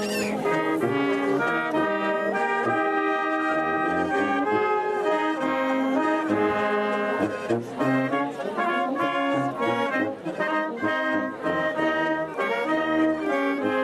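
A brass band plays a tune: flugelhorns and clarinets carry the melody over tenor horns and a tuba bass line that moves in a steady pulse, with an accordion in the band.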